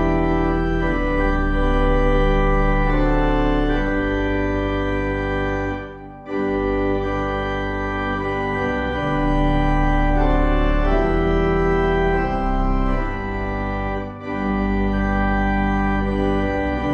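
Slow organ music: sustained chords over a deep bass, changing every second or two, with short breaks about six and fourteen seconds in.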